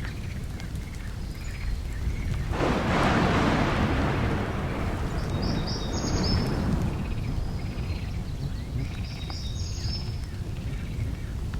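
Outdoor ambience with a steady low rumble and birds chirping in short repeated bursts. About two and a half seconds in, a loud rush of noise starts suddenly and fades away over about four seconds.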